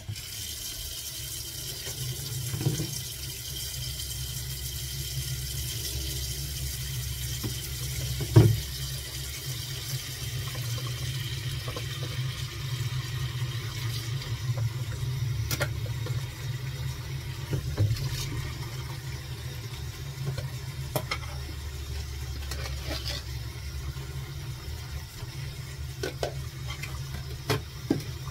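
Kitchen tap running steadily into a stainless steel sink as it fills, with a few short knocks, the loudest about eight seconds in.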